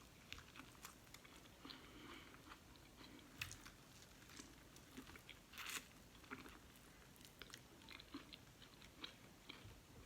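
Faint close-up chewing and biting into corn on the cob: irregular small wet clicks and crunches, with two louder bites about three and a half and six seconds in.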